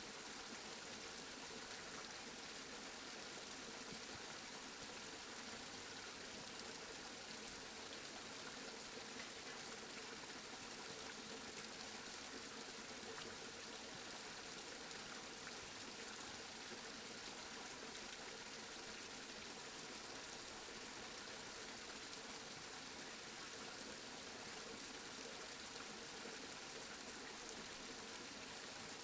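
Steady rain falling: an even hiss of many drops that stays the same throughout.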